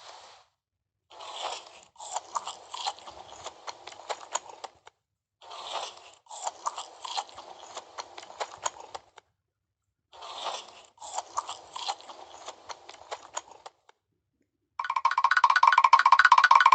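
Chewing and crunching on crunchy food, in three spells of about three and a half seconds each with short pauses between. Near the end a louder buzzy, rapidly pulsing tone starts.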